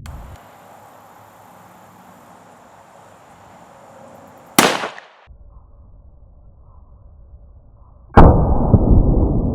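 A single sharp shot from a Smith & Wesson Model 500 revolver in .500 S&W Magnum about four and a half seconds in, dying away within half a second. Near the end comes a second, louder, deeper boom that keeps rumbling.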